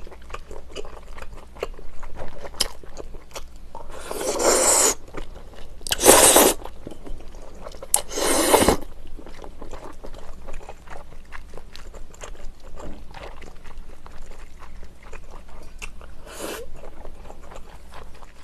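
Close-miked eating of rice cake soup with glass noodles: soft chewing clicks throughout, with three loud slurps of noodles and broth about 4, 6 and 8 seconds in and a shorter one near the end.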